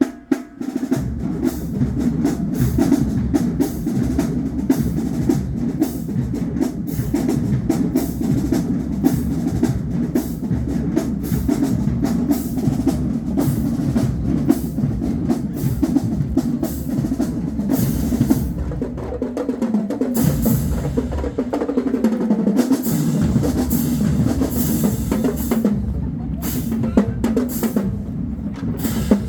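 Marching band drumline playing a fast, driving cadence on snare and bass drums. The bass drums drop out briefly about twenty seconds in, then come back.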